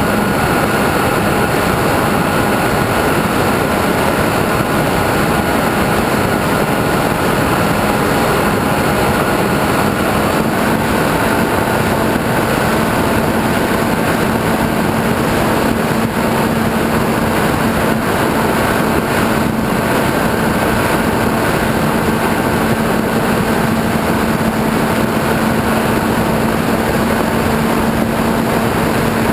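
FPV model airplane's motor and propeller running steadily in flight, a constant drone over heavy wind rush on the onboard microphone; the pitch steps up slightly about ten seconds in.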